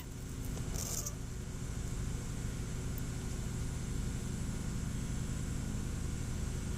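Lit oxyacetylene torch burning steadily with a low, even rumble after the oxygen has been opened, with a brief faint hiss about a second in.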